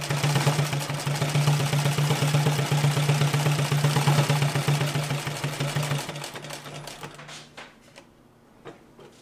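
Consew 229 post-bed triple-feed sewing machine stitching leather at a short stitch length of 16 stitches per inch: a fast, even mechanical clatter over a steady hum. It slows and stops about seven to eight seconds in, followed by a couple of light clicks near the end.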